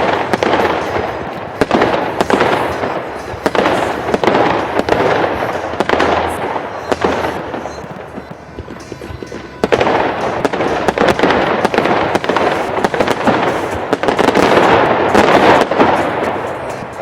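Fireworks display: a dense run of bangs over continuous crackling that swells and dies back, easing off about eight seconds in, then building again to its loudest near the end.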